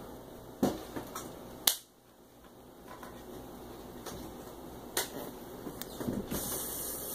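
A few sharp taps over a steady low hiss, the loudest under two seconds in, followed by a brief dip in the background.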